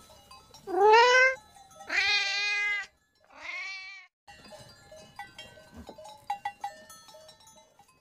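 Domestic cat meowing three times: a rising meow, a longer held one, then a shorter one. Faint scattered clicks follow in the second half.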